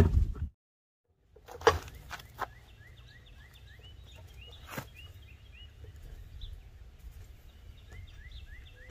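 A few sharp metallic clinks from a lug wrench working the lug nuts on a car wheel, over faint runs of short rising chirps that repeat a few times a second.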